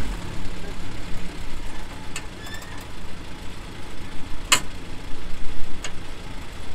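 A vehicle engine running steadily at low speed, with a few sharp clicks or knocks over it, the loudest about four and a half seconds in.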